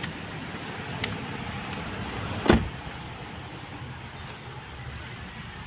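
A car door being shut: a single heavy thump about halfway through, over steady outdoor background noise.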